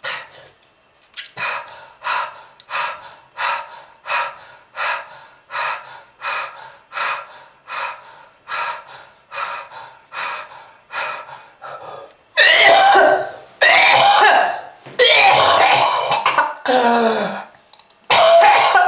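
A person coughing: a long steady run of short coughs, about two a second. From about twelve seconds in come louder, longer, hacking coughs with voice in them, one ending in a strained sound that falls in pitch.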